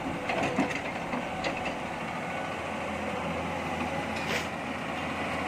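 An engine running steadily with a low hum, with scattered light clicks and knocks over it.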